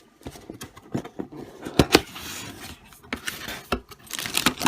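A cardboard toy box being opened and handled: scraping and rustling with a run of sharp clicks and knocks, the loudest two about two seconds in.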